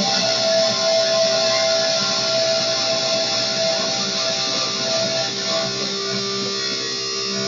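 Live noise music on electric guitar: several held, droning tones over a dense wash of hiss, easing off slightly in the last couple of seconds.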